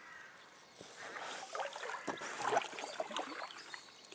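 Kayak paddle dipping and splashing in river water with drips, in irregular strokes that start about a second in.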